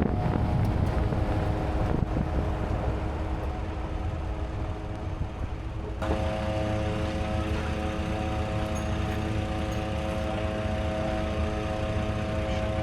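Vehicle driving, a steady engine and road drone over a low rumble. Its tones shift abruptly about halfway through.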